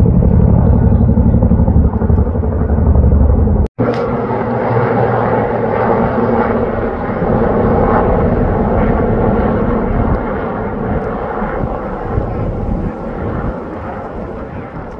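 Boeing CH-47 Chinook tandem-rotor helicopter flying overhead, with a deep, fast rotor beat. About four seconds in, the sound cuts to a large single-rotor firefighting helicopter, a mix of rotor and turbine noise that slowly fades as it flies away.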